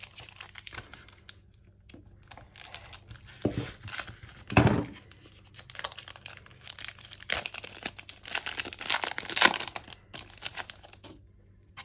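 A foil-wrapped Select AFL Footy Stars trading-card pack being torn open and its wrapper crinkled in the hands, with irregular rips and rustles, the loudest about halfway through. Near the end the cards inside are handled and leafed through.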